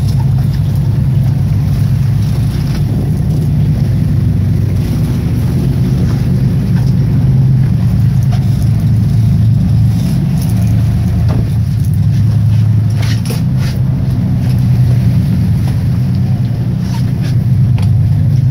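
Fishing boat's engine running, a steady low drone, with a few light clicks and knocks about two-thirds of the way through.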